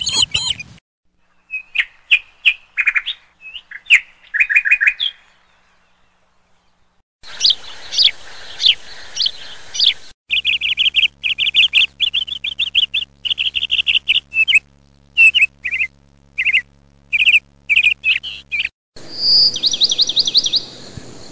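Several bird recordings spliced one after another: quick runs of high chirps and trills, each stretch with its own background hiss that starts and stops abruptly. There is a near-silent pause of about two seconds a third of the way in.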